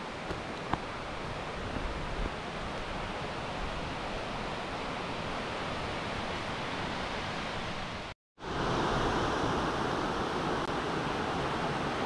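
Steady rushing of Kurokuma Falls' falling water, an even noise with no distinct splashes. About eight seconds in it drops out for a moment and comes back louder and brighter.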